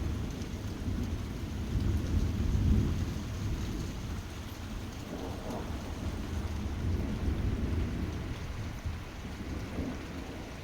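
Thunder rolling over a heavy downpour of rain. The low rumble swells to its loudest about two to three seconds in, then slowly fades, while the rain keeps up a steady hiss.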